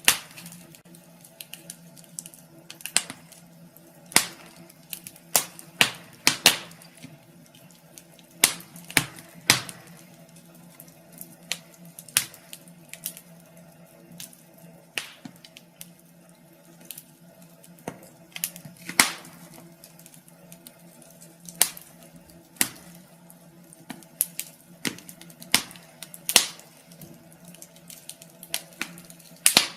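Wood fire crackling in a fireplace: irregular sharp pops and snaps, a few loud ones among many small ticks, over a steady low hum.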